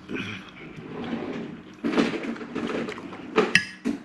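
Metal spoon and fork scraping and tapping on a ceramic dinner plate, with a sharp ringing clink near the end.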